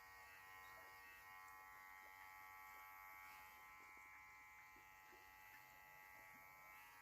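A faint, steady buzz at an unchanging pitch.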